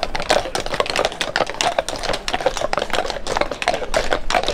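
Shod hooves of several heavy draft horses clopping on brick paving: a dense, irregular clatter of overlapping knocks, several a second.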